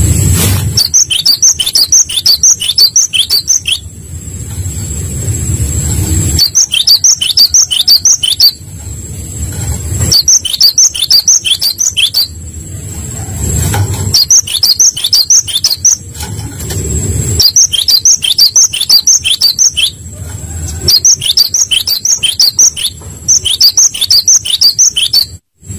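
Gelatik batu (cinereous tit) singing: bursts of rapid, repeated high notes, each lasting about two seconds and coming every few seconds, with a low rumble in some of the gaps.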